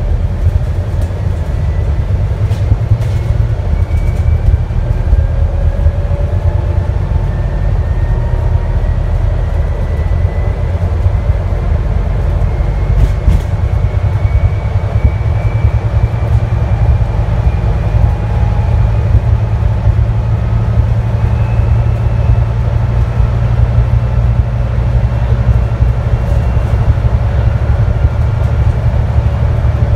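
Scania N250UD double-decker bus under way, heard from the upper deck: a steady deep diesel rumble with road noise, a faint whine climbing slowly in pitch as the bus gathers speed, and a few short knocks and rattles.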